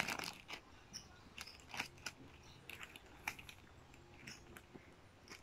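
Faint crinkling and small clicks of a water-filled plastic ziploc bag being handled, with fingers pressing along its zipper seal to make sure it is shut. Short scattered crackles, a few a second.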